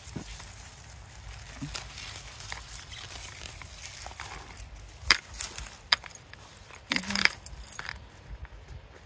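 Rustling and crunching as onions are pulled up out of sandy garden soil and handled, with a few sharp knocks about five to seven seconds in.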